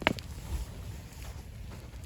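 A sharp click or snap right at the start, followed at once by a smaller one, over a steady low rumbling noise.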